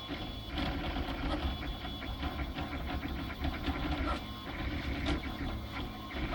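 RoBo 3D printer running a print: a steady low mechanical hum with frequent small irregular clicks and ticks.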